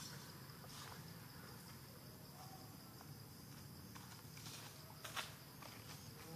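Faint steady chirring of insects, with a few short soft clicks, the sharpest about five seconds in.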